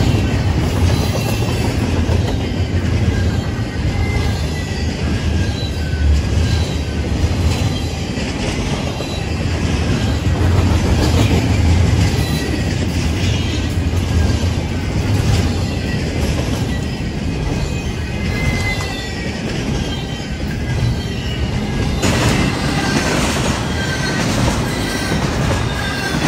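Double-stack container train's well cars rolling past close by at speed: a steady heavy rumble of wheels on rail, with short wavering wheel squeals coming and going.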